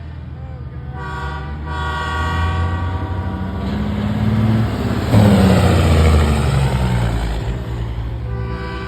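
Semi truck passing close while blowing a loud multi-tone air horn, held for several seconds. Under it the diesel engine's rumble swells to a peak about five seconds in, its pitch dropping as it goes by, then fades.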